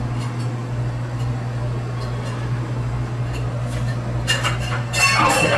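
Steady low hum, then about four seconds in a loud, rattling clatter of glasses and bottles behind a bar.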